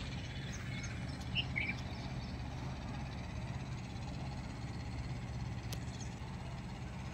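Outdoor ambience: a steady low rumble with a couple of short bird chirps about one and a half seconds in.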